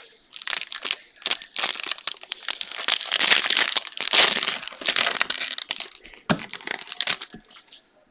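Plastic trading-card pack wrapper being torn open and crinkled by hand, an irregular crackling rustle, with a brief knock near the end.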